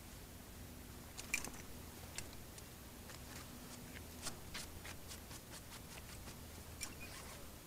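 Faint, scattered light clicks and scuffs as a magnet-fishing rope is gathered and pulled in with rubber-gloved hands, over a steady low background hum. The sharpest click comes about a second and a half in.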